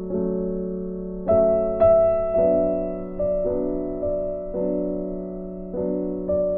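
Background music: soft piano chords, each struck and left to fade, a new one about every second.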